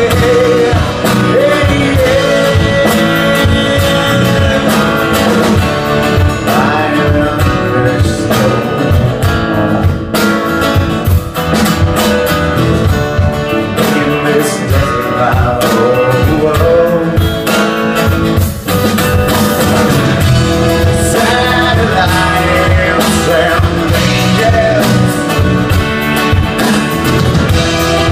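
A band playing a song: guitar and drums keeping a steady beat, with a singing voice.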